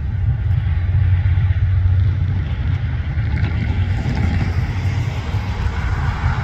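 Freight train going by with a steady low rumble, with some higher rolling noise building from about halfway through.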